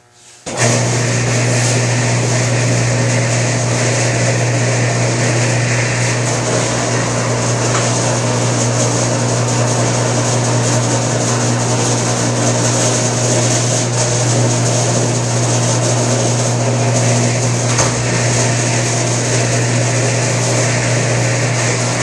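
Pittsburgh lock former, a motor-driven sheet-metal roll-forming machine, starting up about half a second in, then running steadily with a strong low hum from its motor and rolls.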